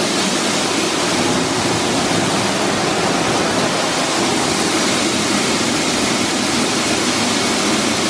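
Shelled corn pouring from a hopper-bottom grain trailer's open gate onto a steel grate and into a grain receiving pit: a loud, steady rushing hiss.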